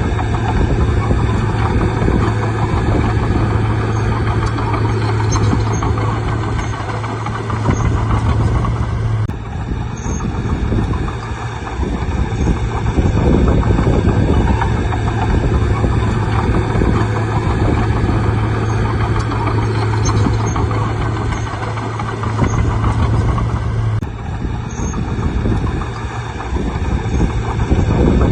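Bulldozer's diesel engine running steadily, a deep constant drone with rough noise over it. The sound changes abruptly twice, about nine and twenty-four seconds in.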